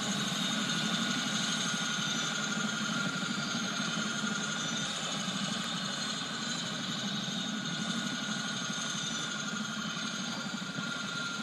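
Large radio-controlled scale model Mil Mi-8 helicopter running on the ground at idle with its main rotor turning: a steady mechanical whine made of several high tones over a lower rumble.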